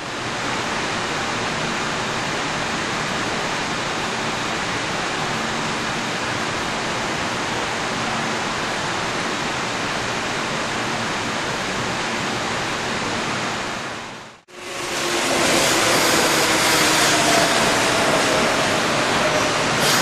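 Railway station platform ambience: a steady, even rushing noise that breaks off sharply about 14 seconds in. It then returns louder, with faint, slowly falling tones and a couple of short clicks near the end.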